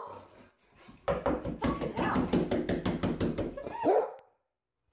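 Dog barking at a mountain lion: a single bark near the start, then a fast, unbroken run of barks for about three seconds, and one more bark near the end.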